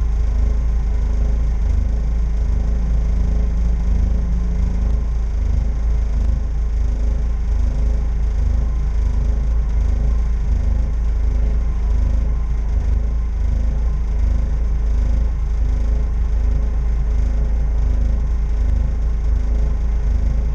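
Steady, loud low rumble of a running vehicle, with a regular pulsing.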